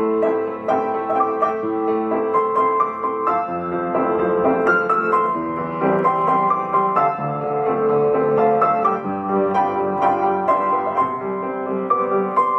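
Solo piano playing a pop ballad, a melody over flowing accompaniment chords with notes struck continuously.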